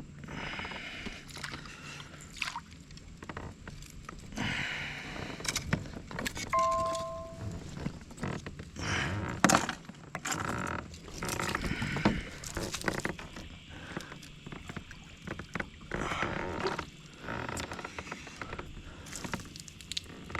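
Irregular knocks, clicks and scrapes of handling noise in a kayak, with stretches of hiss, and a short two-note beep about six and a half seconds in.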